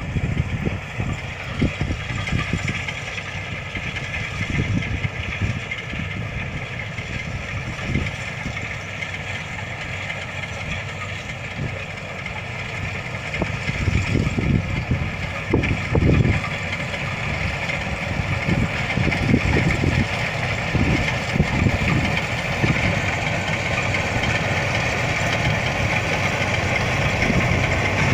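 Galaxy 100 HP combine harvester's engine running steadily, with an irregular low rumble underneath; it grows a little louder about halfway through.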